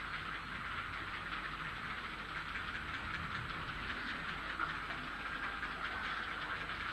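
Grey heron chicks begging on the nest, a continuous rapid chattering of many short clicking calls.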